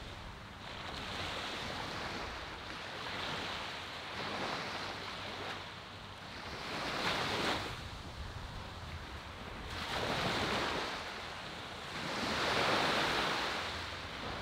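Small waves washing up a sandy shore and breaking, the surf swelling and fading every few seconds.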